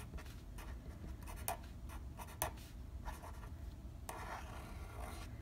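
Black marker pen writing and drawing on a sheet of paper: a run of short pen strokes and taps on the page, with a longer stretch of strokes about four seconds in.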